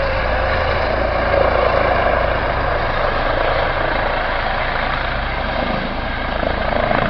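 Eurocopter EC135 rescue helicopter hovering low and settling in to land, a steady loud mix of turbine and rotor noise.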